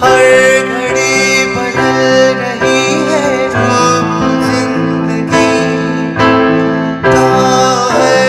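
Music: sustained chords changing about once a second, with a melody line over them.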